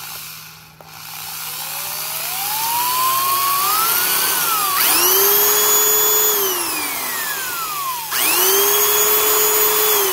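Makita 6510LVR 3/8-inch corded carpenter's drill, its small 3-amp motor running free with no bit: the variable-speed trigger is eased in so the whine rises slowly, then it is pulled fully twice. Each time the motor spins up quickly to a high, steady whine and coasts down with a falling whine when the trigger is let go. It sounds like it is spinning mighty fast.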